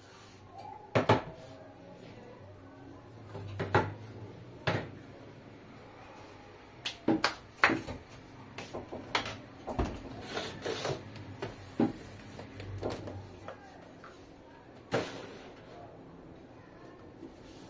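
Scattered, irregular knocks, taps and clatter of a wall shelf and the things on it being handled and shifted, with a dozen or so sharp hits, some louder than others.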